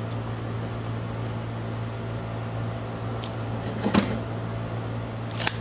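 Steady low background hum, with a soft knock about four seconds in and a few sharp clicks near the end.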